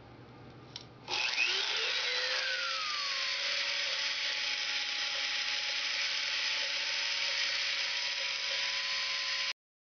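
Dremel rotary tool with a 1/8-inch diamond grinding bit, mounted in a drill-press stand, switched on about a second in. Its whine glides for a couple of seconds as it comes up to speed, then runs steady and noisy, a tool the owner says needs service, and cuts off suddenly near the end.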